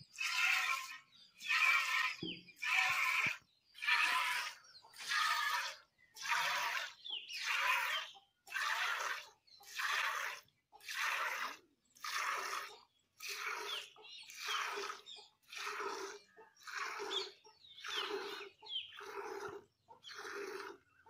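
Cow being milked by hand: jets of milk squirting into a pail, a hissing spurt with each squeeze, about five every four seconds. From about halfway a lower note joins each spurt.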